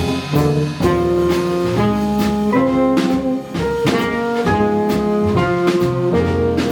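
Live jazz combo starting to play. A melody of held notes, changing about every half second, runs over bass and drums with cymbal strokes.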